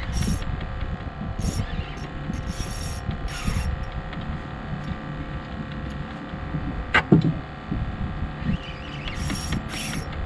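Fishing reel being wound in under load against a hooked fish, its gears clicking and rattling in short bursts, over a steady low rumble. A brief sharp squeak comes about seven seconds in.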